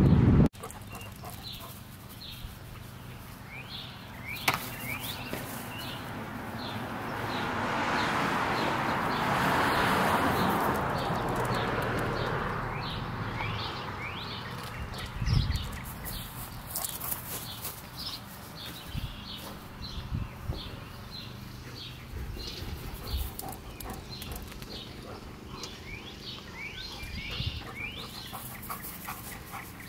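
Birds chirping throughout, many short quick calls in a steady stream; about a quarter of the way in, a soft whooshing noise swells and fades over several seconds, and a dull thump comes about halfway.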